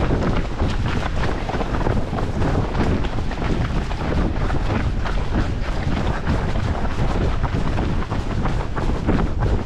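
Wind rumbling on a running action camera's microphone, a steady low buffeting, mixed with the irregular patter of a pack of runners' footfalls.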